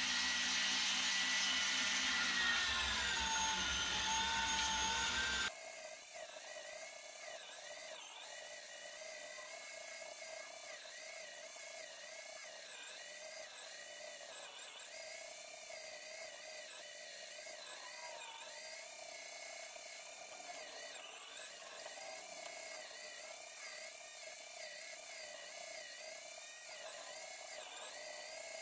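KitchenAid stand mixer's electric motor driving its meat grinder attachment as pork is fed through, a steady motor whine that dips in pitch a couple of seconds in as the meat loads it. About five seconds in the sound changes abruptly to a thinner, higher whine whose pitch keeps wavering.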